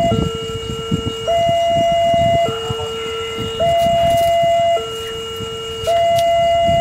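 Railway level-crossing warning alarm sounding its two-tone signal, a lower and a higher note alternating about once a second, warning that a train is approaching.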